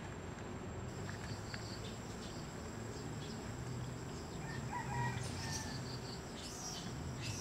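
A short animal call about five seconds in, over steady outdoor background noise with a constant high tone.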